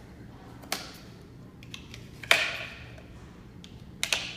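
Air compressor hose and its fittings being handled: a few separate knocks and clatters, the loudest a rattling clatter about two seconds in.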